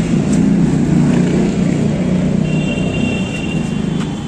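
Low, steady rumble of a heavy vehicle passing close by, peaking about a second in and fading slowly, with a faint high thin whine from about halfway.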